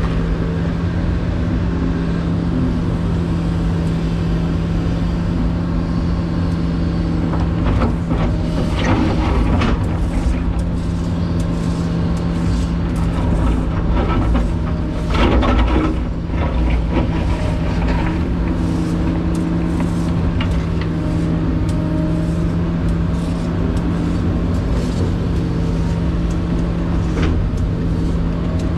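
Excavator's diesel engine running steadily, heard from inside the cab, while the bucket digs and dumps dirt and rock. There is louder scraping and clatter about eight seconds in and again about fifteen seconds in.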